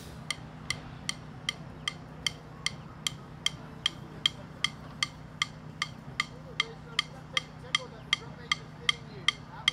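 Metronome clicking a steady beat, about two and a half clicks a second, over a low steady hum.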